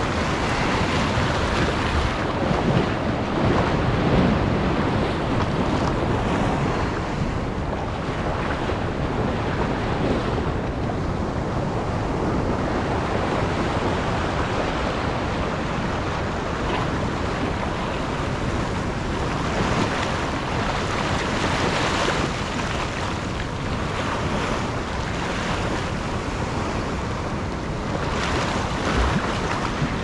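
Ocean surf washing and churning around the waterline among rocks, close to the microphone, surging louder several times, with wind buffeting the microphone.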